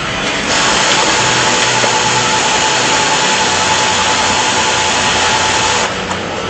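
Juki LZ-2290 industrial zigzag lockstitch sewing machine running at speed through a seam, with a steady whine. It starts about half a second in and stops about a second before the end.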